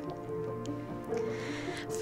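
Soft background music with held notes. About a second in, a brief soft rustle.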